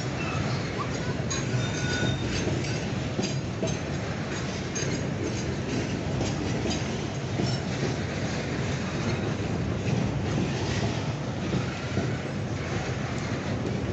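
Loaded log freight wagons rolling past steadily. Wheels clatter over the rail and give short, high-pitched squeals again and again.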